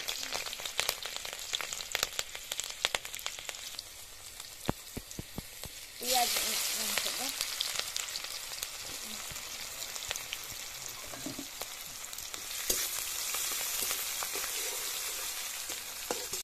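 Hot oil crackling and spitting in an aluminium wok. About six seconds in it jumps to a loud, steady sizzle as sliced onions go into the oil, and it swells again near the end while they fry.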